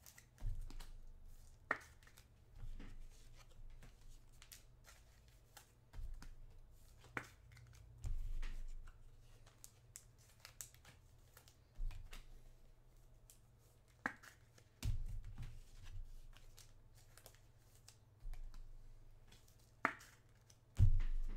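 Handling noises from trading cards and their packaging being worked off-camera: irregular soft low thumps and bumps with scattered faint sharp clicks and ticks, several seconds apart.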